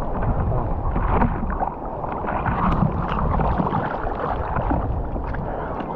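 Ocean surf churning and splashing around a swimmer in the breaking waves, with many short splashes.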